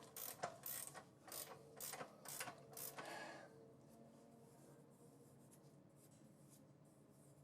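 Transmission jack ratcheting as it lowers a heavy transmission: sharp, evenly spaced ratchet clicks about two a second, stopping about three and a half seconds in and leaving near silence.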